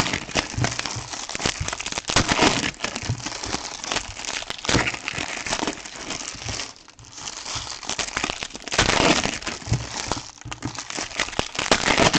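Plastic wrapping crinkling and rustling in irregular bursts as trading-card packaging is handled and opened, with a short lull about two-thirds of the way through.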